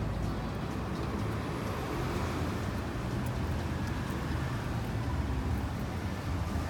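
Steady low rumble of road traffic, with no distinct events.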